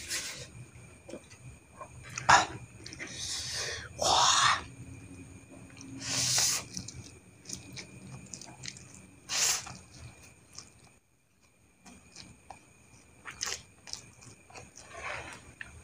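A person slurping and chewing fried instant noodles (mie goreng) off a fork, with about half a dozen loud, short slurps and quieter chewing between them.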